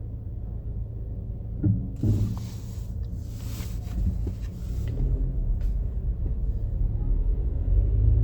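City street traffic: a steady low rumble of vehicles, with a hiss lasting about three seconds a couple of seconds in, and a vehicle's rumble growing louder over the last few seconds as it comes closer.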